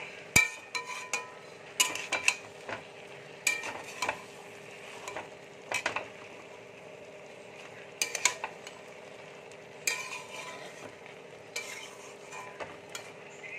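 Flat metal spatula scraping and knocking against a metal kadai as a thick banana-flower and prawn curry is stirred, in irregular strokes about a second or two apart, over a faint steady sizzle from the pan.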